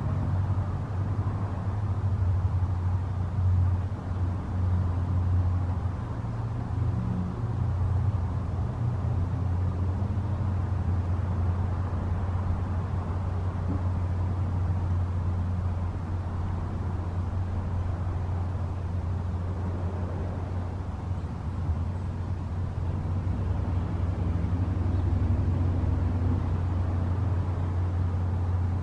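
Steady low rumble of distant road traffic, with faint engine hums coming and going.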